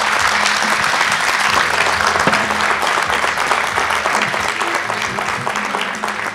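Audience applauding at the end of a talk, many hands clapping together, starting to die away near the end.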